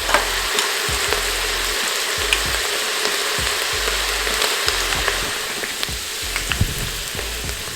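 Ground beef, onion and garlic frying in an Instant Pot on its sauté setting: a steady sizzle, with scattered light clicks.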